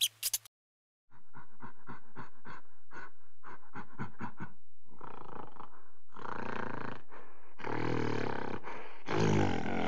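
Gorilla panting in quick short breaths, about three or four a second. From about halfway these become longer, louder breathy grunts.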